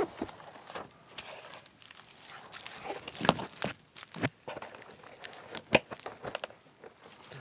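Packaging being handled and opened during the unboxing of a clear acrylic keyboard cover: irregular crinkling and rustling with scattered sharp clicks and taps. The loudest clicks come around three to four seconds in and again near six seconds.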